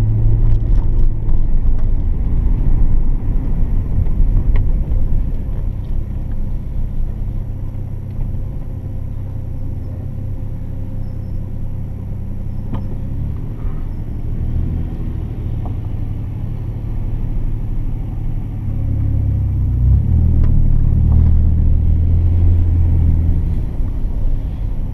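1990 Nissan Skyline R32 GT-R's RB26DETT twin-turbo straight-six running under way with road noise, a low steady rumble that eases off for a stretch in the middle and builds again near the end as the car is driven harder.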